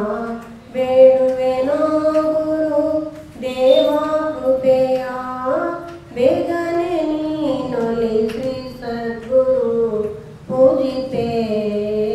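An older woman singing a devotional song solo into a handheld microphone, in long held notes that slide between pitches, in phrases of a few seconds with short breaths between them.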